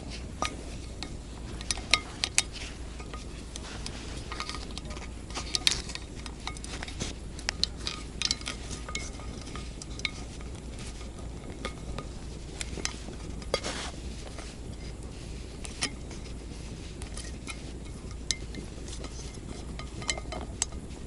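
Irregular light metallic clinks, taps and scrapes as wire is worked onto an aluminium ladle by hand, with a few sharper clanks.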